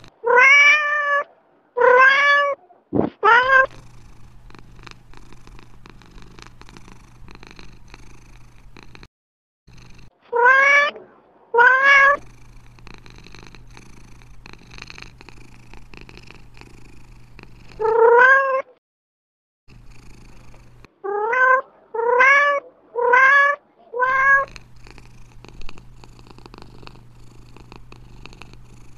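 Domestic cat meowing, about eleven short meows that each rise in pitch. They come in clusters: three at the start, a pair, a single one, then a quick run of five. A faint low hum is under the gaps.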